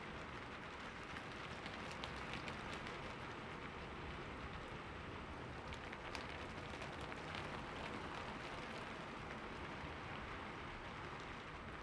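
Steady rain falling on a surface: an even hiss with many individual drops ticking through it.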